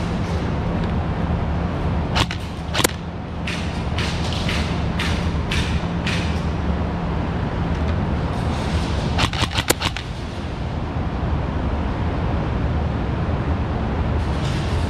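Scattered sharp cracks of airsoft guns firing: a few single shots early and a quick run of four or five about nine seconds in, over a steady low rumble.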